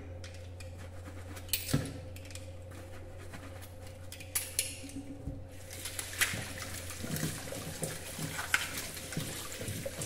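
Dishes washed by hand under a running kitchen tap: water flowing into the sink, with a few sharp clinks of glasses and cups being handled.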